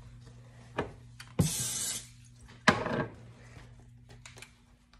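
Pancake batter sloshing and sputtering in a plastic squeeze bottle as it is shaken and squeezed: a short sound about a second in, a hiss of about half a second, then another short burst.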